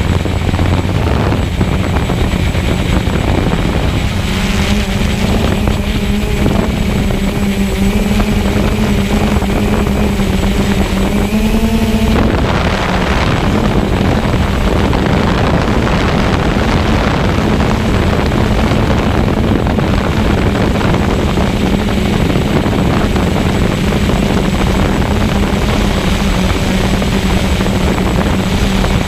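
Walkera QR X350 Pro quadcopter's motors and propellers buzzing steadily in flight, heard up close from the camera mounted on the drone. The hum creeps up slightly in pitch, then shifts and drops about twelve seconds in.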